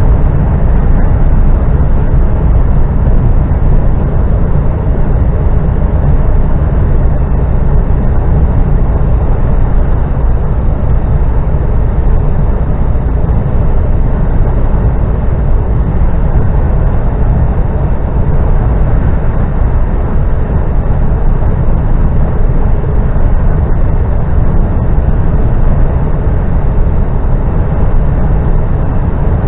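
Steady road and engine noise inside a moving car's cabin: a constant low rumble with an even hiss above it.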